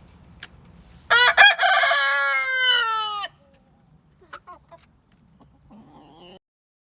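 Rooster crowing once: a single loud cock-a-doodle-doo lasting about two seconds, its pitch dropping at the end, followed by a few faint short sounds.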